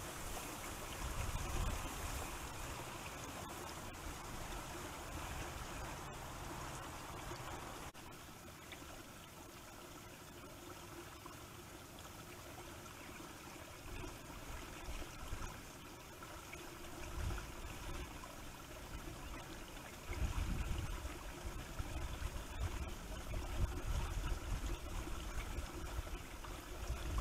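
Wind gusting over a trail camera's microphone: irregular low rumbling buffets over a steady faint hiss, heaviest in the last seven seconds.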